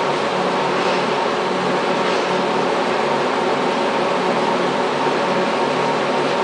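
Monarch 24N geared-head engine lathe running under power, a steady mechanical hum with several constant tones from its headstock gearing.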